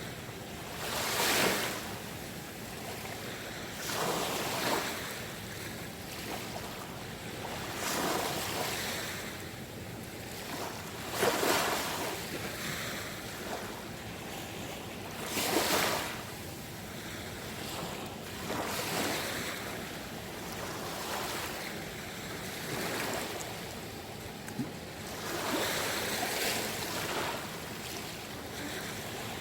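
Small sea waves washing onto the shore, a swell of surf every three to four seconds.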